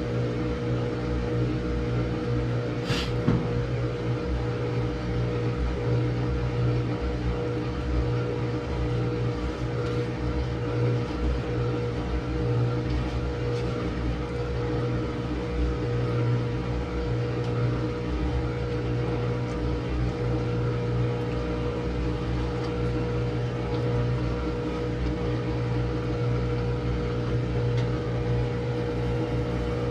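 Samsung washing machine spinning its drum in a long spin cycle: a steady motor hum with a fixed low drone. A brief sharp click about three seconds in.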